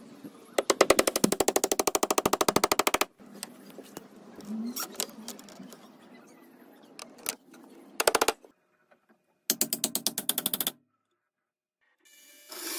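A tool's mechanism making a rapid mechanical rattle of evenly spaced clicks, about twenty a second. It comes in three bursts: a long one of about two and a half seconds starting about half a second in, a brief one past the middle, and one of about a second near the end.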